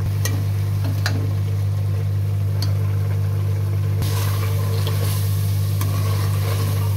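Mutton, onions and tomatoes sizzling in oil in a karahi, with a metal ladle clicking and scraping against the pan; the sizzle grows louder about four seconds in. A steady low hum runs underneath and is the loudest sound.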